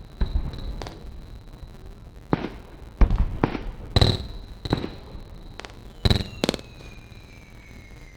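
Small indoor fireworks going off in a run of sharp cracks and pops, about nine at uneven intervals, in a distorted, edited recording. A steady high thin tone sits underneath, and a faint whistle slowly falls in pitch from about six seconds in.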